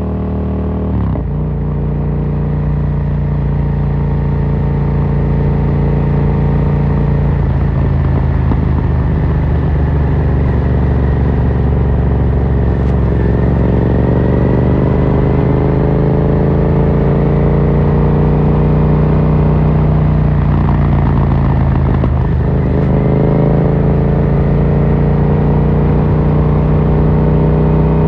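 Yamaha MT-07's parallel-twin engine through an Akrapovic carbon full exhaust, running steadily under way. Its pitch shifts about a second in, dips and climbs again around the middle, and dips then rises sharply near the end.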